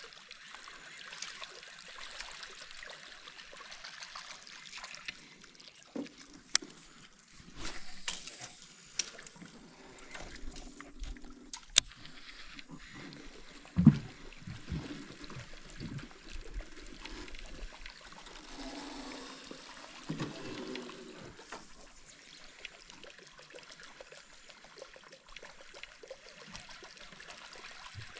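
Water trickling and lapping around a small boat on a river, with scattered knocks and clicks; a sharp click near the middle is followed shortly by a loud thump.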